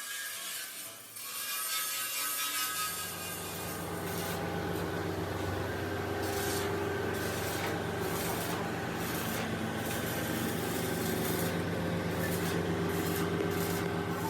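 Metalworking in a workshop: rough rasping and scraping strokes, with a machine's steady hum that starts about two and a half seconds in.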